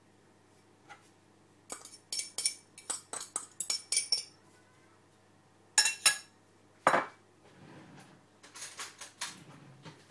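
Kitchenware clinking as chopped parsley is tipped from a ceramic ramekin into a china bowl. There is a quick run of sharp clicks and taps for a couple of seconds, then a few louder single knocks, and a softer patter of taps near the end.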